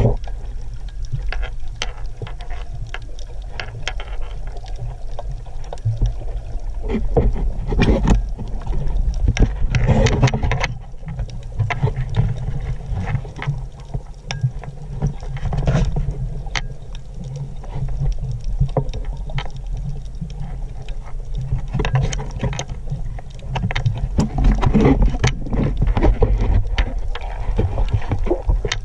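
Muffled underwater sound picked up by a camera held below the surface while snorkelling: a heavy low rumble of moving water with scattered sharp clicks and crackles, swelling louder a few times as the water and the swimmer move.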